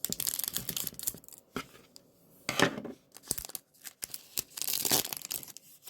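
A trading card booster pack wrapper being torn open and crinkled by hand, in several irregular bursts of tearing and rustling.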